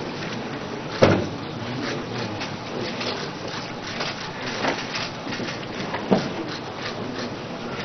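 Room noise of a standing group shuffling into place, with a few sharp knocks: the loudest about a second in and another about six seconds in.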